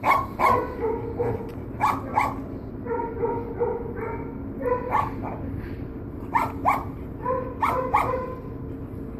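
Dogs barking and yipping repeatedly, sharp short barks often in quick pairs, with a faint steady whine underneath.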